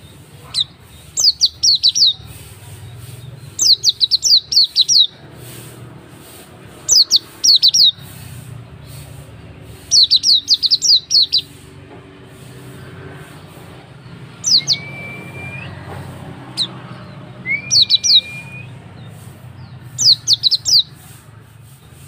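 Hume's white-eye (pleci auri) calling: bursts of three to five quick, high, falling chirps, repeated every two to three seconds. Twice in the second half it gives a longer rising whistle.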